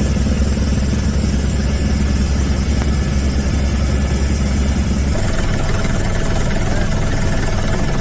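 A steady, loud low engine drone with a hum of evenly stacked tones; its deepest part drops away about five seconds in.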